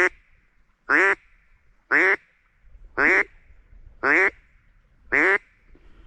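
Six loud, quack-like animal calls, evenly spaced about a second apart, each short and nasal-toned.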